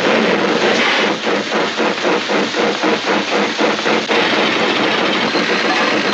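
Steam-train chugging sound effect: a loud, rhythmic hissing chuff, about three to four beats a second, steadying into a continuous hiss near the end.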